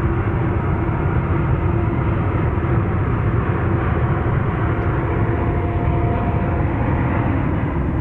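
Boeing 787-9 Dreamliner's jet engines at takeoff power: a loud, steady rumbling noise carrying a faint held tone.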